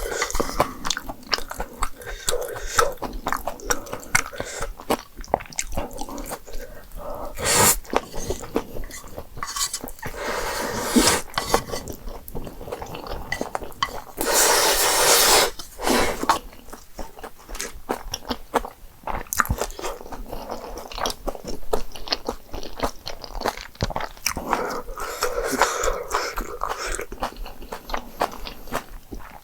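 Close-miked eating sounds: a person chewing and biting through a meal of jjapagetti noodles and spicy green onion kimchi, with many small clicks, and a louder rushing stretch lasting about a second around the middle.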